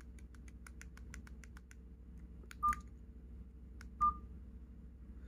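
Buttons on a KGTEL i9 feature phone clicking in quick succession, about a dozen presses in under two seconds, then two short, single-pitched beeps from the phone's speaker about a second and a half apart.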